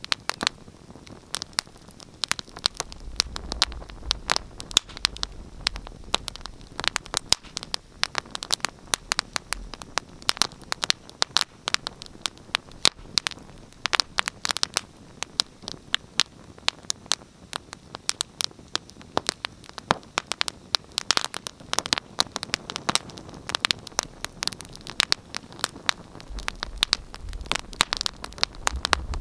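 Fireplace fire crackling, with frequent sharp, irregular pops over a soft steady hiss. A low rumble comes in a few seconds in, fades, and returns near the end.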